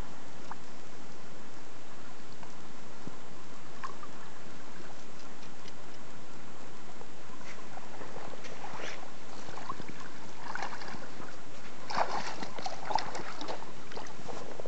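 Water splashing in short irregular bursts as a hooked rainbow trout is played in close and landed in shallow water. The splashes start about eight seconds in and are loudest a little before the end, over a steady hiss.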